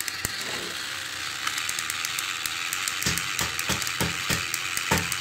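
Motorised toy train engines whirring steadily as they run along plastic track, with fine clicks and several low knocks between about three and five seconds in.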